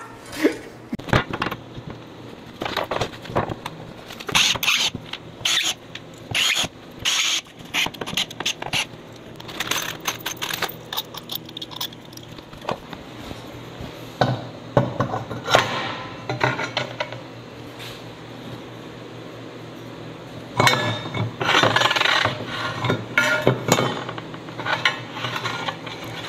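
Plasma-cut metal gear plates clinking and scraping against each other as they are handled and fitted together to test whether they mesh. The clinks come in irregular clusters, with a quieter stretch in the middle and another run near the end.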